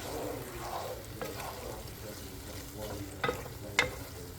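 Stir-fry sizzling in a pan as it is stirred with a spatula, just after soy sauce has been poured in. The spatula clicks against the pan about a second in and twice more shortly after three seconds in.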